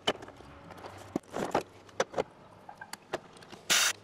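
Scattered light clicks and knocks of hands and tools on a garden cart wheel, then a short spray hiss near the end as an aerosol lubricant is sprayed at the wheel hub and axle nut.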